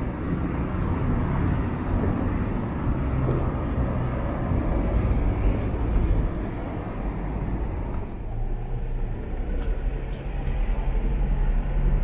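City street traffic: a steady rumble of vehicle engines and tyres, with the background shifting about eight seconds in.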